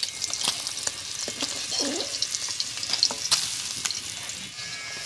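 Pabda fish sizzling and crackling in hot mustard oil, with clicks and scrapes of a spatula as the fried fish are lifted out of the pan.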